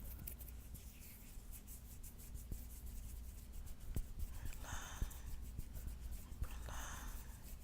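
Fingernails scratching a palm close to the microphone in many fine, quick scratchy ticks, with two heavy breaths in the second half.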